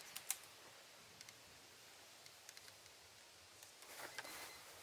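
Near silence: faint background hiss with a few light clicks.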